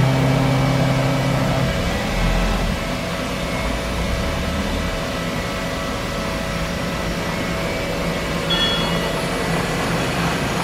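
CNC bed mill running, a steady machine hum with several steady pitched tones; one lower tone drops out about one and a half seconds in.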